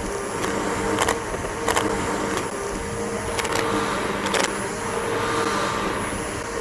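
Bissell BigGreen PowerForce upright vacuum running steadily with a motor hum and whine, broken by several sharp clicks at irregular intervals.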